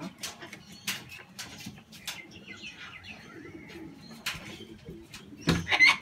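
Cockatoos calling, with many short sharp taps and knocks, and a louder burst of calling near the end.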